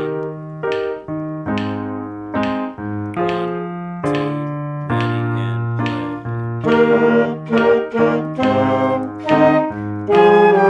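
Concert band play-along track with piano, chords and melody notes at a steady tempo, some brass also heard.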